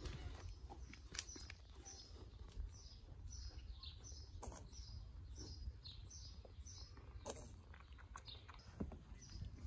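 A small bird singing a steady run of short, high, falling chirps, about two or three a second, which stop near the end. A few sharp clicks sound over a low rumble.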